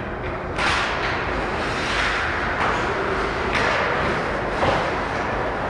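Ice hockey play after a faceoff: skate blades scraping the ice in repeated hissing strokes over a steady low rink rumble, with a sharp knock near the end.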